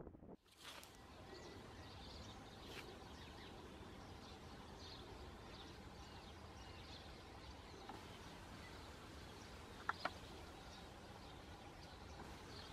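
Faint outdoor ambience: a steady low rumble with scattered short bird chirps, and one louder brief call about ten seconds in.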